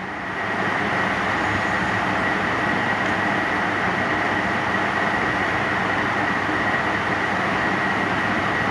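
Steady rushing machine noise with a thin high whine running through it, swelling up in the first half-second and then holding level.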